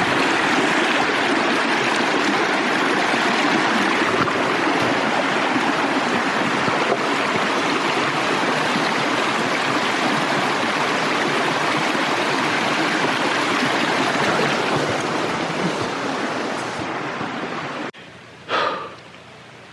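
Steady rush of flowing water from a stream or small waterfall, cutting off abruptly near the end.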